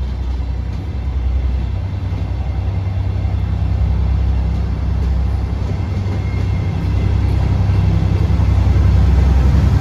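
Train rumbling with a low, steady drone that grows gradually louder.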